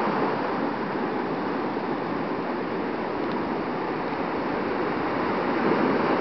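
Atlantic surf breaking and washing up the beach: a steady rush of noise that swells a little near the end.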